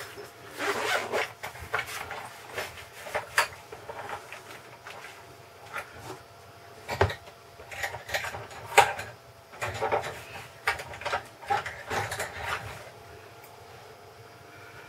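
Small tools and plastic parts being handled while the transmission is disconnected from an RC crawler chassis: irregular clicks, taps and scraping, with a couple of sharper knocks around the middle.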